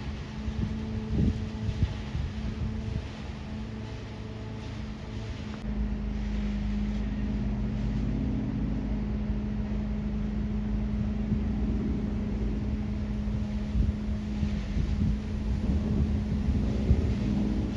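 Airplane passing overhead: a steady engine drone, with wind rumbling on the microphone.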